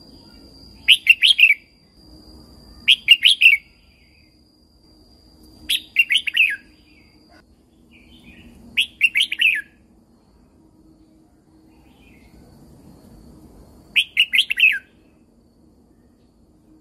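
Red-whiskered bulbul singing: five short, quick warbling phrases, each under a second, spaced a few seconds apart with a longer gap before the last.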